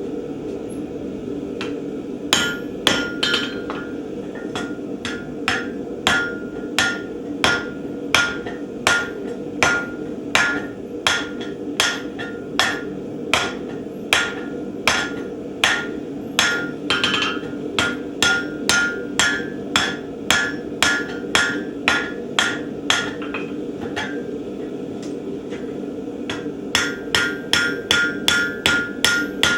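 Steel being forged with evenly paced hammer blows on hot bar, a little under two a second, each with a short ringing note, over a steady low hum. The blows stop for a few seconds, then come back quicker near the end.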